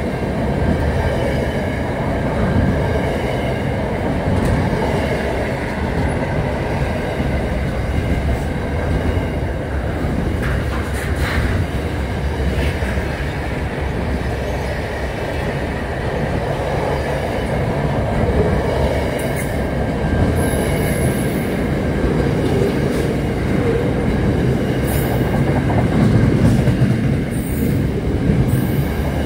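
Freight train wagons rolling past close by: a steady heavy rumble of wheels on rail, with a few brief high wheel squeals about ten seconds in and again in the last ten seconds.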